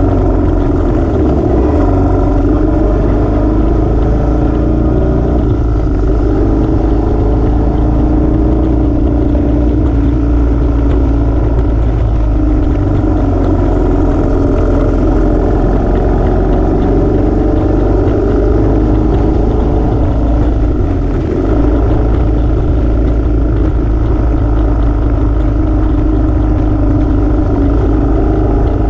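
Royal Enfield motorcycle engine running steadily at road speed, its pitch wavering a little with the throttle and easing off briefly about two-thirds of the way through, under a heavy low rumble of wind on the bike-mounted camera.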